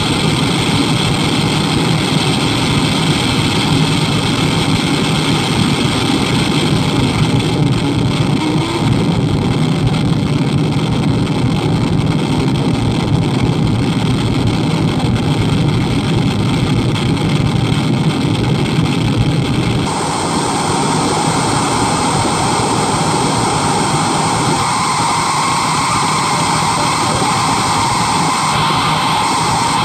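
Harsh noise wall played through a Laney guitar amplifier and speaker cabinet: a loud, dense, unchanging wall of distorted static. About twenty seconds in the tone shifts abruptly from a heavy low rumble to a brighter, thinner hiss.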